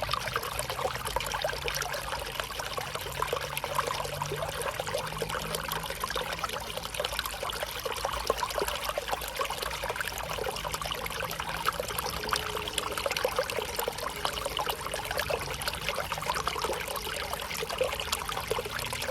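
Small river flowing, its water trickling and splashing steadily with a dense patter of small splashes.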